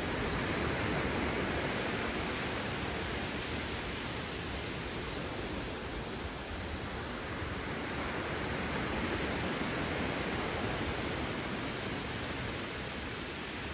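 Small waves breaking and washing up a sandy beach: a steady rush of surf that swells and eases slowly.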